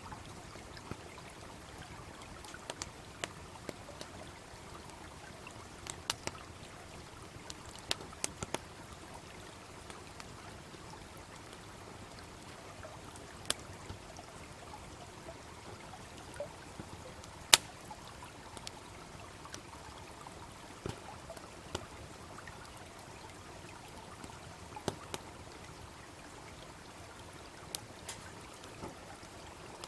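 Wood campfire crackling, with scattered sharp pops, over the steady babbling of a small stream. The loudest pop comes a little past halfway.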